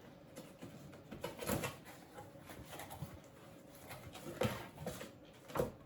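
Faint, scattered rustling and scraping from the headlight's packaging being handled and opened, louder for a moment about a second and a half in, again past four seconds, and near the end.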